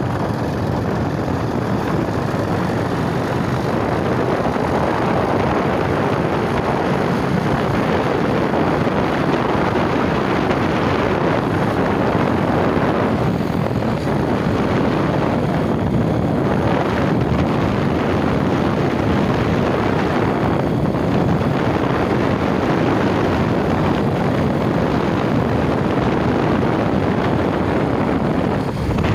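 Bajaj Pulsar 150 motorcycle being ridden: its single-cylinder engine running steadily under way, mixed with wind noise on the microphone.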